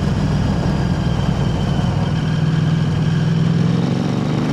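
KTM 890 Adventure R's parallel-twin engine running through an Arrow Race-Tech aftermarket exhaust while riding. The engine note is steady, then rises slightly in pitch from about halfway as the bike pulls.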